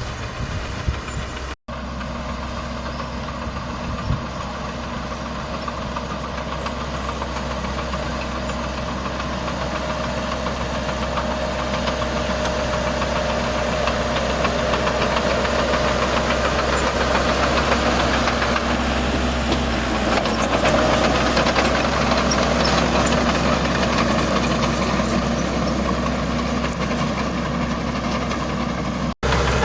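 Heavy diesel earthmoving engine running steadily, growing louder over the stretch, with two very short dropouts.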